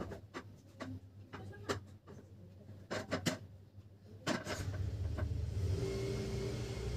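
Light clicks and taps of a baby's fingers on a plastic plate and high-chair tray, then a steady low rumble with a hum that sets in about four and a half seconds in and keeps going.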